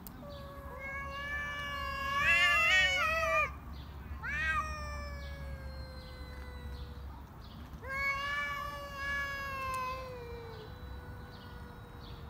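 Two cats yowling at each other in a tense standoff: three long, drawn-out yowls, the first the loudest and wavering in pitch near its end, the last trailing off into a faint held note.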